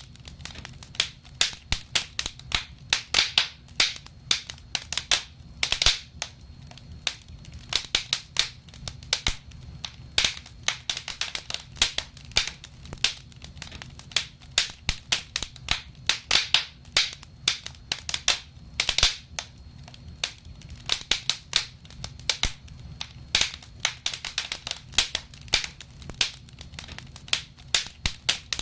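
Wood fire in a fireplace crackling and popping, with many irregular sharp cracks several times a second over a low steady rumble.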